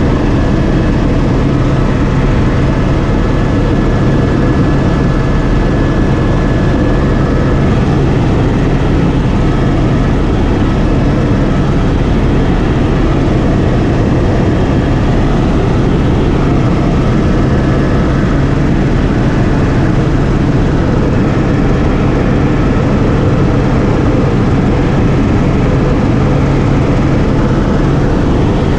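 Helicopter in flight heard from inside the cockpit: the engine and rotor make a loud, steady drone, with a faint high whine that comes and goes.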